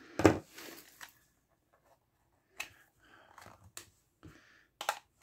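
Plastic snap clips of an infrared thermometer's housing popping and the plastic shell being handled as it is pried apart: one louder crack with rustling about a quarter second in, then scattered small clicks and rubbing.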